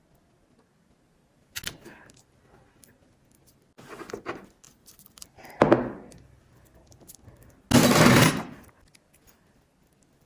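Slime being handled and pressed, giving a few separate short noisy bursts; the loudest comes near the end and lasts almost a second.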